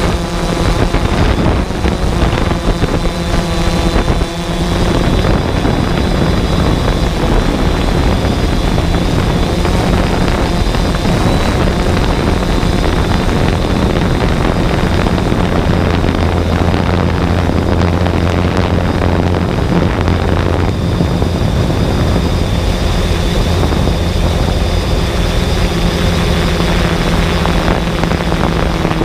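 A flying drone's motors and propellers whirring steadily, heard up close by the camera riding on it, with a thin high whine over the whir and a brief dip about four seconds in.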